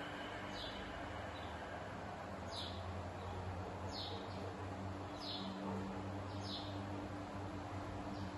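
A bird repeating a short, high, falling chirp about every one to two seconds, over a steady low hum.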